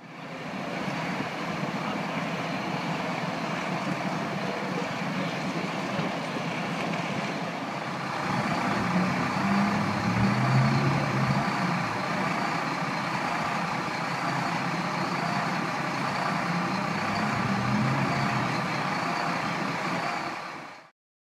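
Fire engine running steadily at a fire scene, a constant engine drone with a wobbling high whine above it. A wavering tone swells over it around the middle and again near the end.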